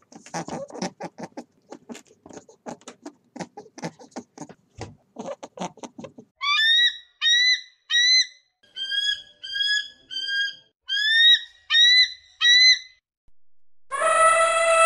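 Bald eagle calling: a series of about a dozen high, thin whistled chirps, each sliding up and then dropping off. Before it comes a rapid run of dry clicks and ticks. Near the end an African elephant trumpets, one long loud call that falls in pitch as it ends.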